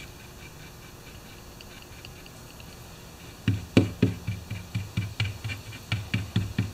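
A stick stirring and mashing two-part JB Weld epoxy on a sheet of cardboard on the bench: about three and a half seconds in, soft, dull knocks begin, about four a second, as the stick strikes the cardboard. Before them there is only a faint hiss.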